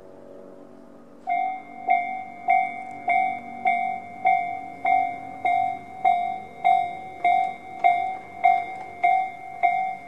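Japanese railway level-crossing electronic warning bell, the slow-tempo Tobu 'C' type, starting about a second in and ringing a single bell-like tone a little under twice a second. It signals that the crossing has been activated for an approaching train. A faint low hum is heard before it starts.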